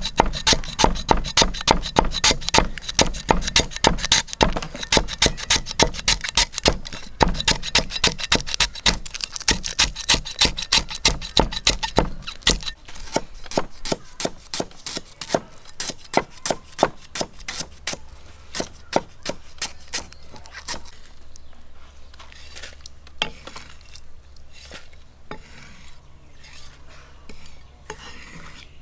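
Hand food preparation with a kitchen tool: a rapid run of regular strokes, about three a second, loud for the first dozen seconds, then softer and sparser, with only a few scattered strokes near the end.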